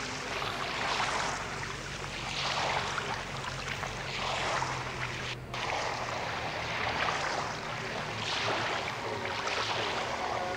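Small waves lapping and splashing, a hiss that swells and fades every second or two, with a brief break about five seconds in.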